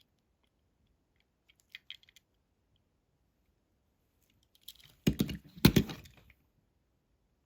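Toy cars being handled and set down: a few faint clicks, then two louder clacks about five seconds in.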